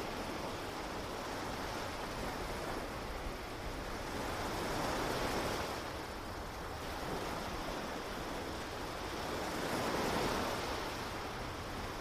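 Ocean surf washing onto a beach: a steady rush of water that swells as waves break, about five seconds in and again near the end.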